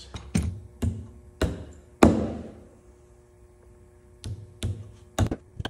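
Pipe clamps being loosened and taken off a wooden side table: a series of separate knocks and clanks of metal against wood. The loudest comes about two seconds in and is followed by a faint ringing that lingers.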